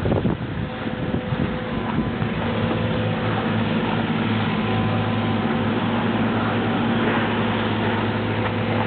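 Engine of a nearby vehicle or machine running steadily: a low hum with a few overtones over a rushing noise, with a few irregular knocks in the first couple of seconds.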